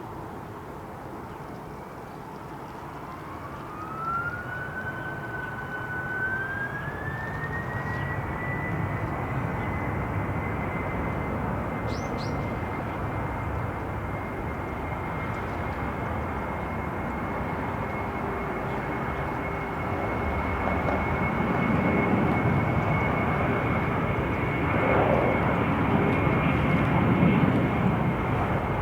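Jet airliner engines spooling up: a whine rises over about six seconds, then holds steady and high over a growing engine roar, as the aircraft powers up for its takeoff roll.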